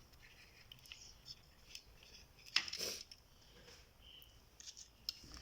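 Small clicks and ticks of tools and parts being handled, with one louder scrape lasting about half a second a little past the middle.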